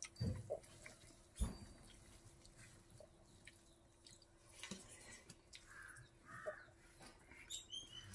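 A hand mixing rice and curry on a banana leaf: soft squishing, rustling and light taps, with two dull thumps in the first second and a half. Faint crow calls in the background.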